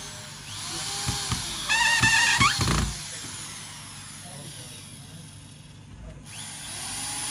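Electric drill worked into a wooden chair frame. About two seconds in the motor gives a short wavering whine with a few knocks, over a steady hiss that breaks off briefly near the end.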